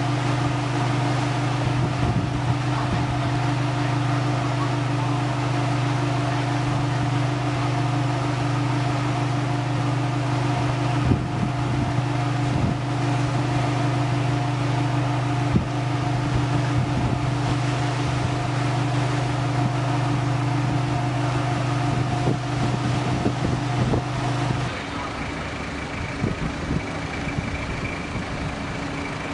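A steady engine hum holding a few fixed pitches, with occasional small knocks over it. About 25 seconds in it gives way to quieter, rougher vehicle-type noise with a faint high steady tone.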